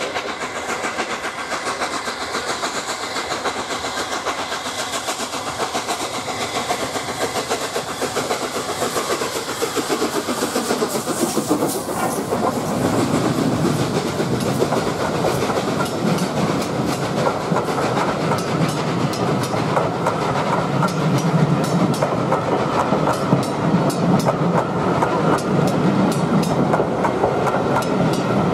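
LNER A3 steam locomotive No. 60103 "Flying Scotsman" hauling a passenger train past at speed, its sound dropping in pitch as it goes by about ten seconds in. Its coaches then roll past close by with a rhythmic clickety-clack of wheels over the rail joints, growing louder.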